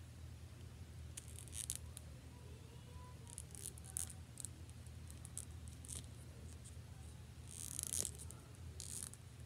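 Faint clicks and rustles of a small plastic action figure and its pickaxe accessory handled in the fingers, in scattered short bursts, the loudest about a second and a half in and again near the end, over a steady low hum.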